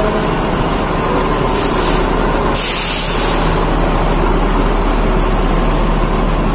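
A bus engine running steadily, with two short hisses of compressed air about one and a half and two and a half seconds in, the second louder and longer.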